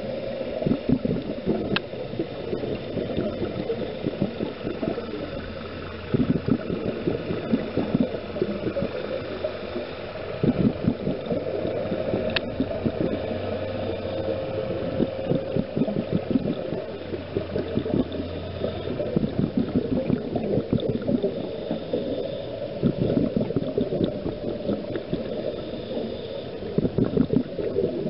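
Scuba diver's exhaled bubbles gurgling in bursts every few seconds, heard underwater, over a steady low hum.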